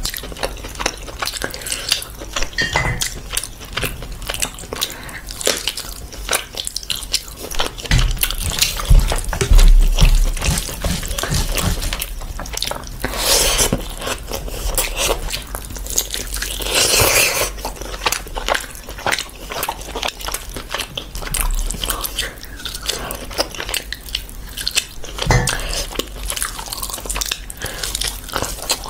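Close-miked eating of saucy rice by hand: wet chewing and lip smacks with many small clicks, and two longer, louder noisy stretches about 13 and 17 seconds in.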